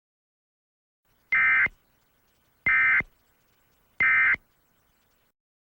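Emergency Alert System end-of-message code: three short, buzzy bursts of two-tone digital data, each about a third of a second long and about a second apart, signalling that the alert broadcast has ended.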